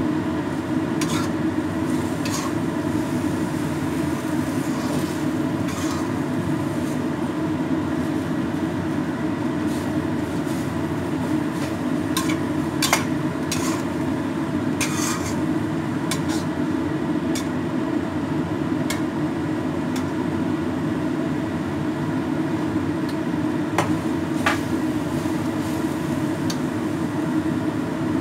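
Metal spatula scraping and knocking against a wok while stir-frying rice vermicelli, in scattered strokes, over a steady low mechanical hum.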